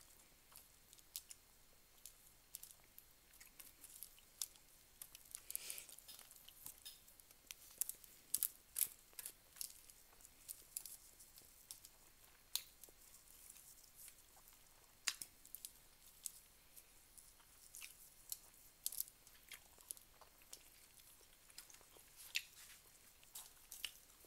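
Close mouth sounds of someone eating rice and fish by hand: irregular wet chewing and sharp lip-smack clicks, with a longer wet sound about six seconds in.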